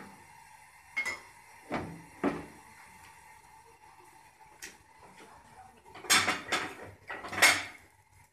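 Metal spoon knocking and scraping on an iron tawa as ghee is put on a frying paratha: a few separate sharp clinks in the first seconds, then a louder run of clattering near the end.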